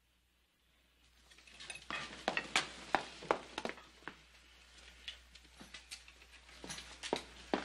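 Clatter of dishes and cutlery in a busy restaurant dining room: a scatter of clinks and knocks that starts about a second in, busiest soon after, then thinning out.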